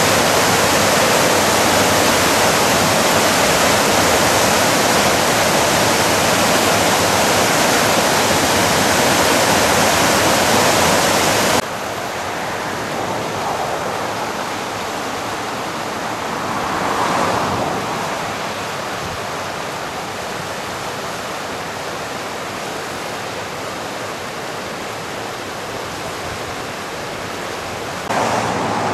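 Rushing whitewater of a river falls in spring flood: a loud, steady rush. It drops to a quieter rush at a cut about a third of the way in, swells briefly a few seconds later, and jumps louder again just before the end.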